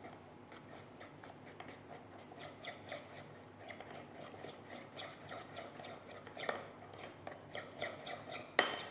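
Metal spoon stirring a thick Korean chili-paste sauce in a ceramic bowl: faint, irregular sticky scraping with light clicks of the spoon against the bowl, and a sharper knock near the end.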